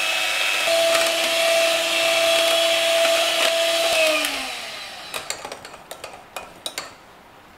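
Electric hand mixer whipping fresh cream in a glass bowl: a steady motor whine that glides down and stops about four seconds in, followed by a few light clicks and knocks. The cream is being whipped to a slightly soft firm-peak stage.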